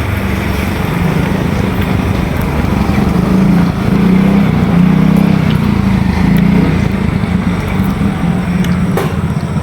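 An engine running steadily, a low drone that swells a little around the middle.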